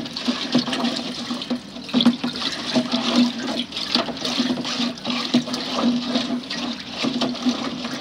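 Used X-ray processing solution sloshing and swirling in a plastic drum as a stick stirs it round, mixing in the added chemical so the silver-bearing sludge will settle out. A steady low hum runs underneath.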